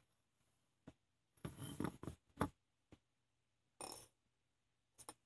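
Quiet handling sounds: a glass bowl slid and scraped across a wooden tabletop twice, with a few small clicks and knocks in between.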